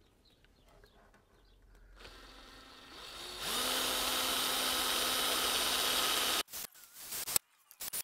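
Power drill spinning up about three seconds in and running steadily for about three seconds as a small bit bores into the plastic body of a stuck ABS wheel speed sensor in the hub. It then stops abruptly, followed by a few short bursts of noise.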